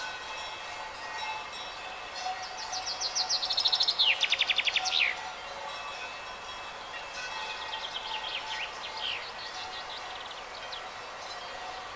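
A songbird sings a fast trilled phrase that falls in pitch and ends in a quick downward flourish. A fainter, similar phrase follows a few seconds later, over a faint steady high-pitched background.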